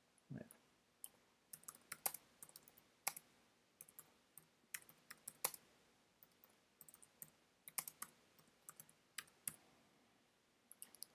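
Computer keyboard typing: faint, irregular key clicks, with a quick run of clicks near the end and a short low sound just after the start.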